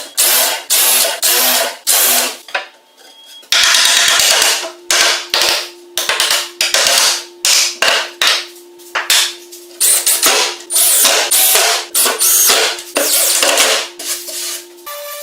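Repeated sharp knocks in an irregular rhythm, about two or three a second, with a pause of about a second near the three-second mark. A steady low hum runs under them from about four and a half seconds in.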